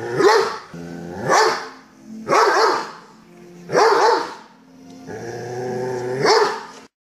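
Doberman growling steadily, broken by five loud barks over about six seconds, cutting off suddenly near the end.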